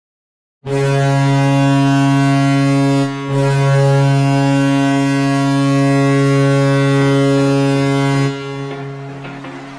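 Hockey arena goal horn: a deep, steady horn blast begins about half a second in, breaks briefly around three seconds, then sounds again in a longer blast that cuts off about a second and a half before the end, leaving quieter sound behind.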